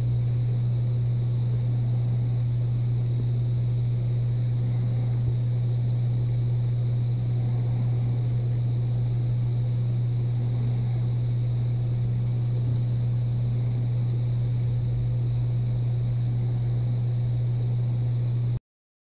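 Cabin sound picked up by a car's dashcam while driving: a steady, loud low drone of engine and road noise that cuts off suddenly near the end.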